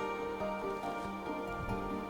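Background music: soft, sustained instrumental notes.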